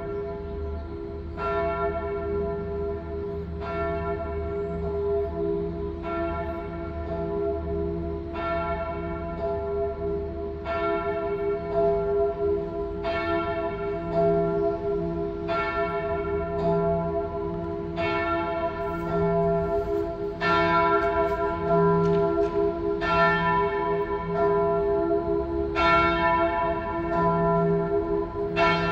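Church bells of Manchester Cathedral rung half-muffled: a steady, continuous sequence of bell strikes, with brighter, louder groups coming round about every two and a half seconds between softer, muffled ones.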